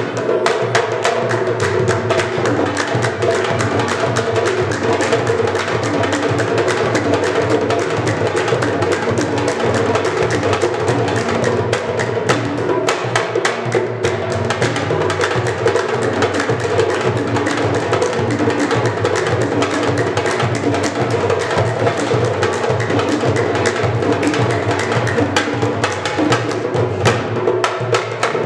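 Upbeat church music played on a hand drum and an electronic keyboard, with a congregation clapping along in rhythm. Dense, quick strikes run over steady held keyboard tones.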